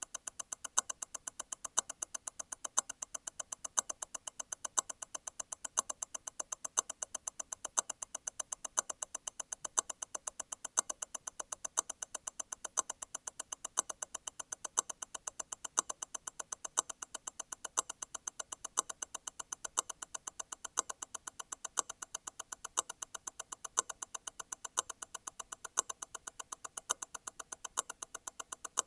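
Grand Seiko T0 Constant-force Tourbillon hand-wound movement ticking rapidly and evenly at 28,800 vibrations per hour, eight beats a second. A louder click recurs about every two seconds: the constant-force stop wheel disengaging and striking again.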